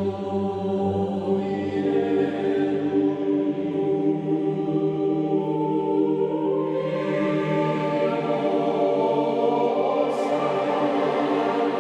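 Slow ambient background music of long held chords, shifting to a brighter chord about two-thirds of the way through.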